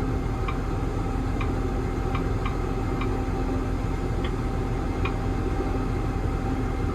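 Krone BiG M self-propelled mower's engine idling with a steady hum heard from inside the cab. Over it come light, irregularly spaced ticks, about seven in the first five seconds, as the auto-steer touchscreen is tapped to name an AB line.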